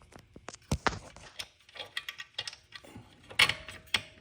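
Irregular metallic clicks and clinks of a wrench working the 12mm exhaust bolts on a motorcycle, with a louder clatter of metal hardware near the end.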